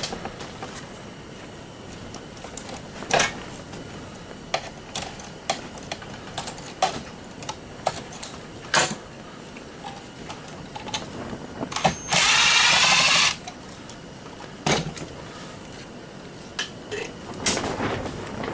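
Scattered clicks and knocks of metal parts being handled while a garage door opener is taken apart, with a power drill running in one burst of about a second about two-thirds of the way in.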